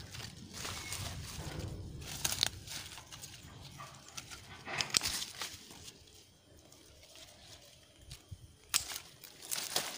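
Hand pruning shears snipping through grapevine shoots, a few sharp snips, with leaves rustling as the shoots are handled.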